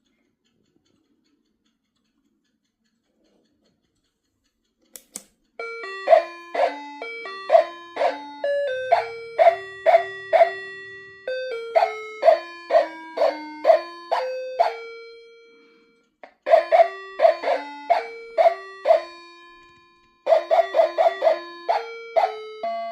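Novelty quartz alarm clock's electronic alarm melody: a click about five seconds in, then a chime tune of clear, decaying notes, several a second, that stops twice briefly and starts again.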